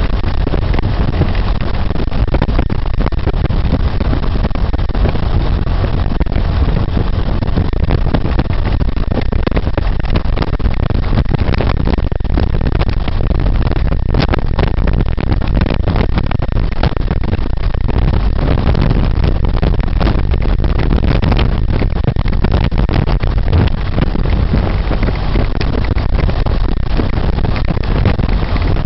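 1924 Ford Model T's four-cylinder engine running steadily while the car is driven along.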